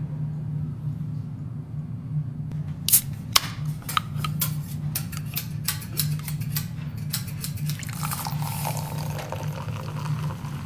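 Metal spatulas clicking and scraping on a teppanyaki griddle, then a hissing sizzle on the hot plate from about eight seconds in, over a steady low hum.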